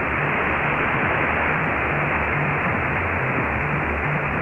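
Shortwave receiver in AM mode putting out steady hiss and static: the weak 19-metre broadcast signal has faded into the noise. A faint low, irregular murmur sits underneath.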